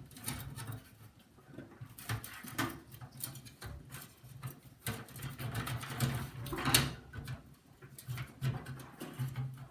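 Irregular plastic clicks, knocks and scrapes as a PC case fan is pushed and turned, trying to seat it back in the computer case.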